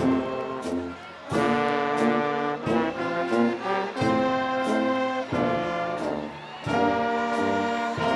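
Brass ensemble playing slow, held chords in phrases, with short breaks between phrases about a second in and again near six seconds.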